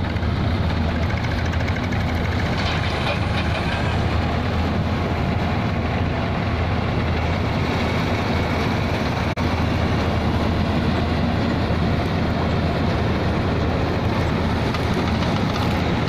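Preet combine harvester running steadily at close range: an even, loud engine hum under the noise of its harvesting machinery.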